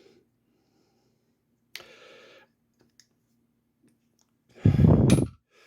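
Handling noise from small metal engine parts being turned over by hand: a sharp click with a short hiss about two seconds in, a few faint ticks, then a loud muffled bump near the end.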